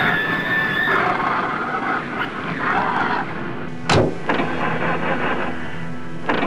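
A steady rumbling noise with a sharp bang about four seconds in and a smaller bang near the end.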